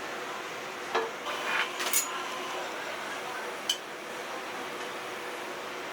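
Kitchen utensils knocking and clinking against dishes: a knock, a short scrape and a clink in quick succession, then a single ringing clink about two seconds later, over a steady hum of room noise.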